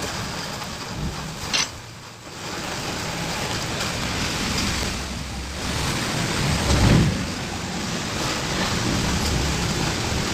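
Steady rushing noise with a sharp click about one and a half seconds in and a heavier low thump around seven seconds in.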